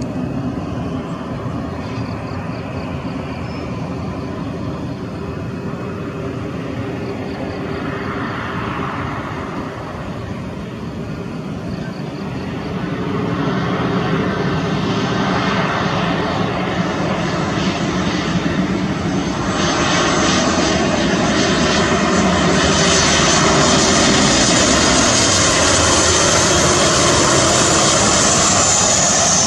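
Boeing 737 airliner's twin jet engines on approach to landing: a steady rushing whine that grows louder as the aircraft nears. The loudness steps up about halfway and again about two-thirds in, and a high whine is strongest near the end.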